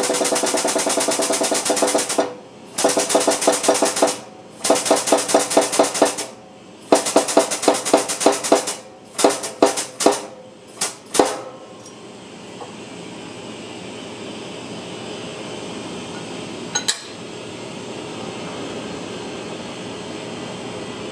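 Impact wrench hammering in bursts of one to two seconds, which get shorter until they stop about eleven seconds in. A steady, softer rushing noise follows, with a single sharp click near the end.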